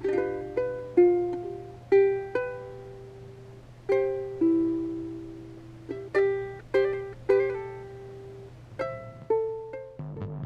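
Background music: an unhurried melody of single plucked string notes, each struck sharply and left to ring out and fade, over a faint steady low hum.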